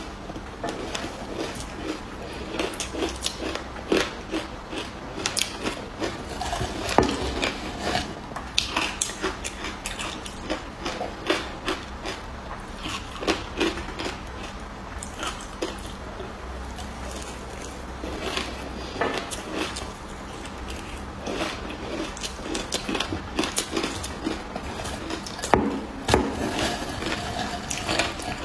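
Frozen ice being bitten and crunched, with many sharp, irregular cracks.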